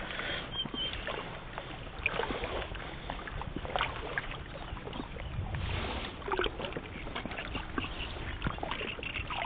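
Faint sloshing and small splashes of shallow water as a hand net for shrimp is lifted and moved while wading, over a steady hiss.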